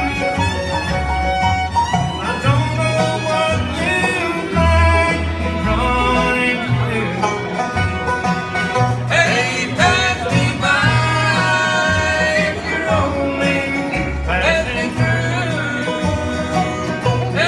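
Bluegrass band playing an instrumental passage: fiddle lines and banjo rolls over guitar and changing bass notes.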